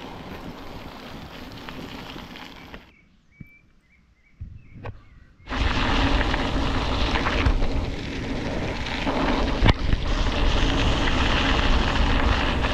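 Wind rushing over an action camera's microphone while riding a mountain bike, with a quiet lull about three seconds in where a few faint high chirps can be heard. The rushing comes back much louder about five and a half seconds in and stays.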